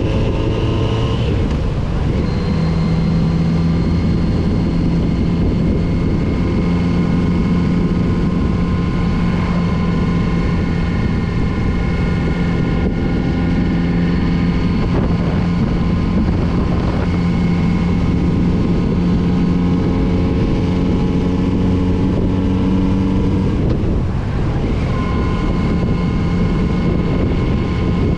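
Kawasaki Z900RS inline-four motorcycle engine running under steady throttle. It rises in pitch, then drops sharply with a gear change about a second in and again near the end, over road and wind noise.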